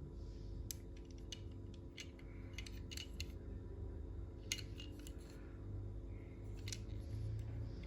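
Irregular sharp clicks and snaps in small clusters, from hands handling a plastic toy and its packaging, over a steady low hum.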